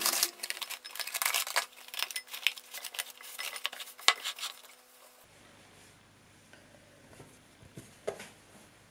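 Plastic cling film crackling and rustling for about five seconds as it is pulled from its box and stretched over a glass bowl. After that it is much quieter, with a few faint taps near the end.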